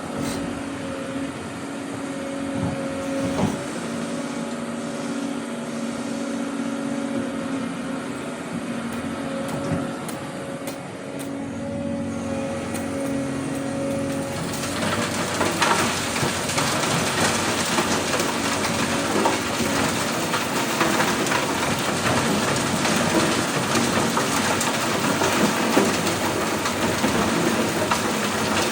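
Doosan DX200A excavator's diesel engine running with a steady hum. About halfway through, a louder, rough rumbling noise takes over and continues.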